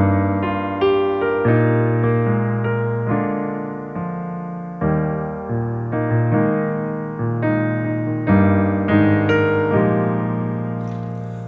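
Piano playing a slow introduction of chords, each struck and left to fade, opening the service's closing song.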